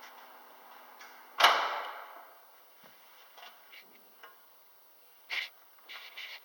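Access Premier platform lift: the steady hum of its drive cuts off with one loud clunk about a second and a half in. Scattered light clicks and a short scrape follow.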